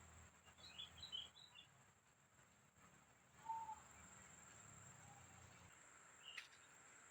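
Near silence: faint outdoor ambience with a quick run of short, high bird-like chirps about a second in, a steady thin high whine underneath, and a single click near the end.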